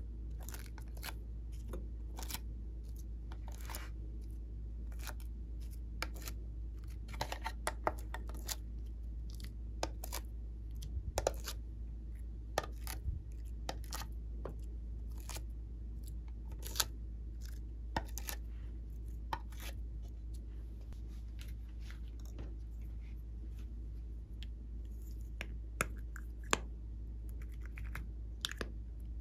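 Irregular small clicks and taps of a clear plastic mould tray being handled as clay pieces are popped out of its cavities, a few taps sharper than the rest, over a steady low hum.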